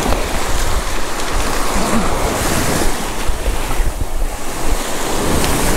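Shallow surf washing and foaming up the beach around the feet, with wind buffeting the microphone in a low rumble.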